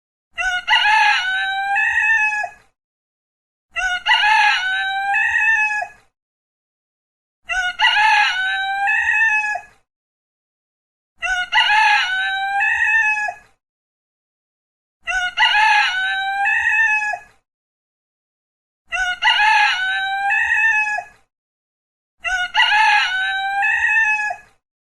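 Rooster crowing. The same cock-a-doodle-doo, about two seconds long and ending on a falling note, repeats seven times at even intervals of roughly three and a half to four seconds, with complete silence between crows.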